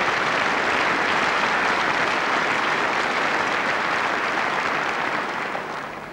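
A large audience applauding, a dense, even clapping that tapers off near the end.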